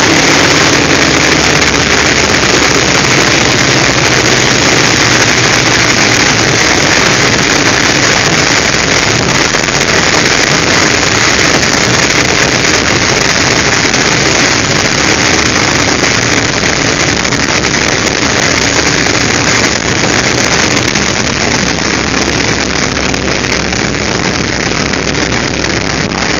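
North American T-28C's Wright R-1820 nine-cylinder radial engine running at low power, heard from inside the cockpit as a loud, steady roar mixed with airflow noise while the plane rolls along the runway.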